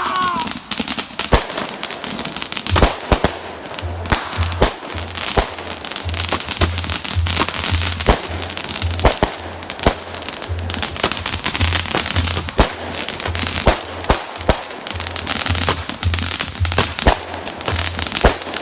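Fireworks going off: a string of sharp bangs, irregularly spaced, over a continuous crackle, with a low hum in the background.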